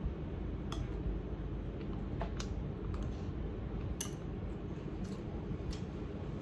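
A metal fork clinking lightly against a ceramic bowl as someone eats, a handful of scattered clicks, over a steady low background rumble.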